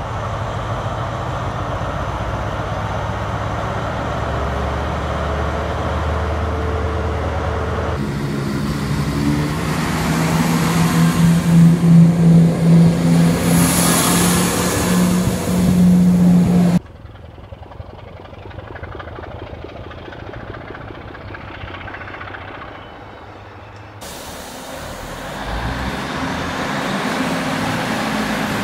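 Diesel passenger trains pulling away under power, one after another. First a class 43 HST power car's engine running under load. Then a diesel multiple unit's engine note steps up in pitch as it accelerates, loudest about 12 to 16 seconds in. It stops abruptly, is followed by quieter running, and near the end a ScotRail class 156 Sprinter's engine is running at the platform.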